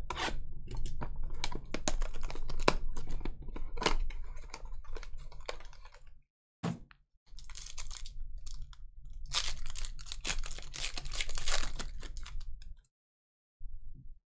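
Crinkling and tearing of trading-card packaging: a wrapped card box is opened, then a foil card pack is torn open. It comes in crackly bursts broken by short silences.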